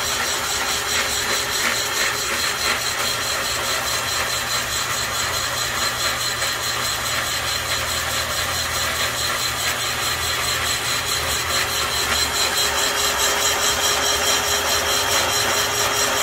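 Portable cylinder boring bar running steadily, its cutter boring out a cylinder of a cast-iron Chevy 327 small-block to 0.060 in oversize for fresh cylinder walls. The sound is an even machine drone with a steady high whine, growing slightly louder near the end.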